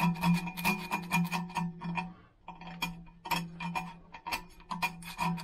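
Small blade scraping old sealant off the edge of a stainless steel scooter exhaust in quick short strokes, with a steady hum under the scraping. The scraping pauses briefly a little after two seconds, then carries on.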